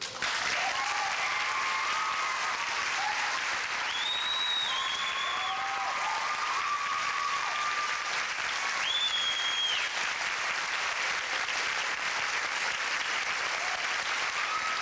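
Audience applauding steadily, with yelled cheers and two shrill whistles, about four and nine seconds in.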